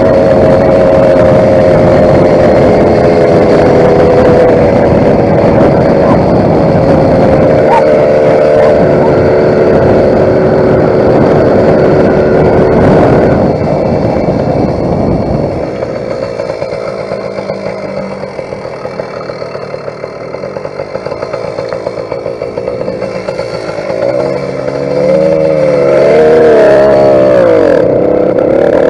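YD100 two-stroke motorized-bicycle engine running hard at steady high revs. About halfway it eases off to a lower, quieter run, then revs up again near the end with its pitch wavering up and down.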